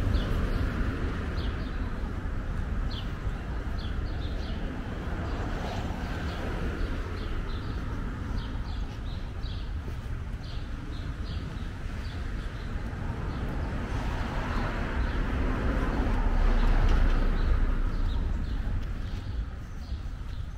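Outdoor residential street ambience: a steady low rumble that swells louder about three-quarters of the way through, with short high bird chirps scattered throughout.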